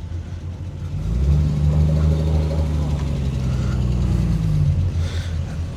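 Classic 1970s Triumph sports car's engine running with a low, steady note. It grows louder about a second in and eases off near the end.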